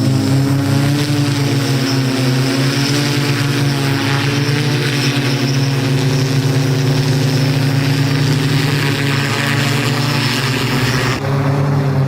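Propellers of a personal flying machine running with a loud, steady drone at a nearly constant pitch over a hiss. Near the end the hiss drops off suddenly while the drone carries on.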